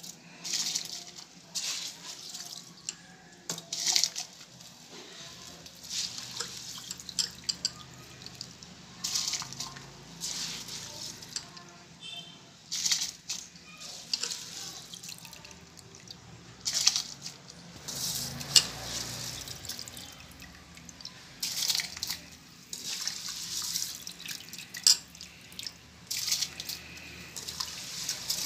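Large aluminium pot of spiced cooking water with freshly added soaked rice, bubbling on the stove as it comes back to the boil: irregular pops and gurgles, a few a second.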